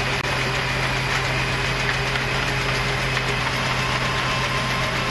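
Steady mechanical drone of shipboard machinery with a constant low hum, running evenly without change.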